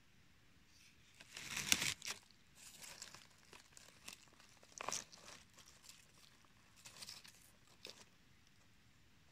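Dry forest-floor litter of twigs, leaves and cones crackling and rustling in short bursts as a porcino mushroom is handled and pulled up by hand; the loudest burst comes about a second and a half in, with smaller ones after.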